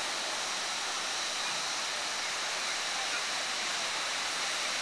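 Steady, even hiss at a constant level, strongest in the high range.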